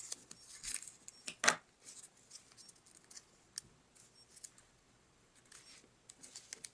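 Origami paper being folded and creased by hand: short, crisp rustles and crackles, the loudest about one and a half seconds in.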